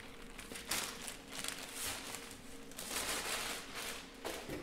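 Clear plastic wrapping crinkling and rustling in irregular bursts as it is pulled off a large electric motor.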